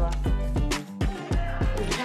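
Background music with a quick, steady drum beat and a deep bass line.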